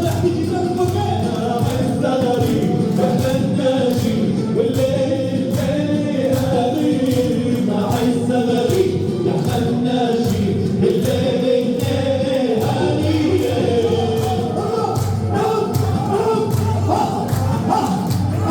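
Group of men singing together in chorus over a steady drum beat: live wedding music.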